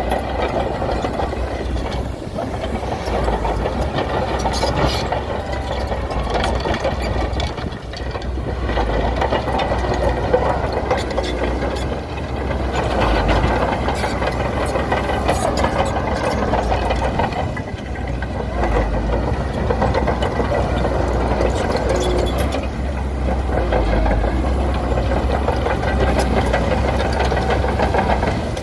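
Bulldozer's diesel engine running, its level rising and falling every few seconds as it works, with scattered clanks and rattles.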